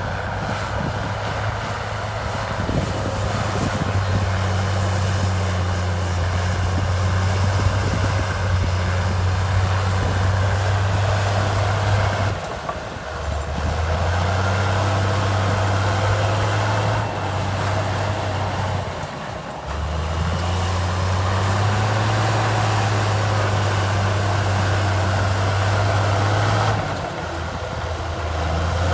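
Heavy earthmoving machine's diesel engine running under load, a deep steady drone. Its note drops and picks up again three times as the load changes.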